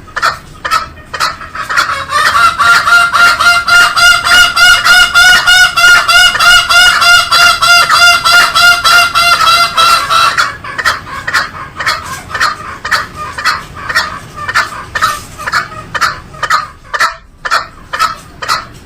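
Green junglefowl calling in a fast train of short repeated notes, about three to four a second. A louder, clearer run of calls comes from about two to ten seconds in.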